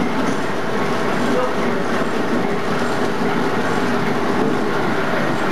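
SY-HD38 automatic square-bottom paper bag making machine running continuously, with a steady, dense mechanical running noise.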